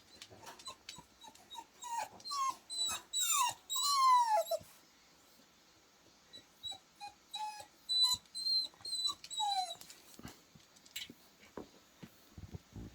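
A dog whining: a run of short, high whimpers, many sliding down in pitch. They come in two bouts with a quiet pause of a couple of seconds between.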